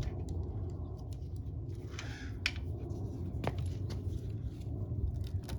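Scattered light clicks and a short scrape from handling the motorcycle's headlight case and speedometer parts, over a steady low background hum.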